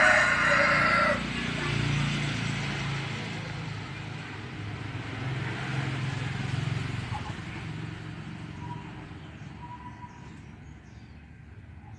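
A rooster crowing, the crow cutting off about a second in, then the low sound of a motor vehicle going by, swelling twice and fading away.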